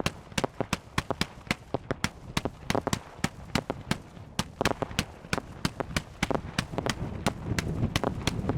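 Fireworks display: a rapid, irregular string of sharp reports, several a second, from shells launching and bursting, with a low rumble building near the end.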